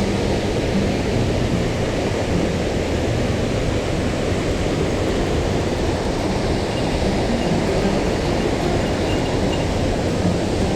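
Mountain stream water rushing over rocks: a steady, loud rush with most of its weight in a deep rumble.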